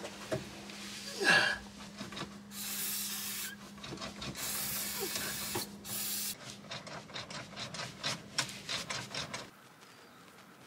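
Hands cleaning the bare metal floor inside a Jeep Wrangler TJ's footwell: rubbing and scrubbing, two hissing bursts of about a second each, then a run of small clicks and taps that stops about a second before the end. A faint steady hum sits under the first six seconds.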